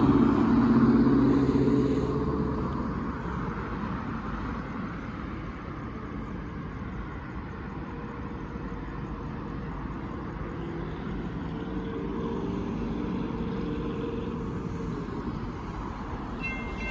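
Road traffic: a motor vehicle passing, loudest at the start and fading away over the first few seconds. Steady traffic noise follows, with an engine hum rising again around the middle.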